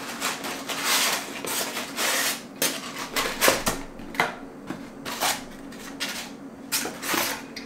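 Cardboard packaging being handled as a printed paperboard box is opened and an inner white box is slid out of it: a run of short papery scrapes and rustles, several a second.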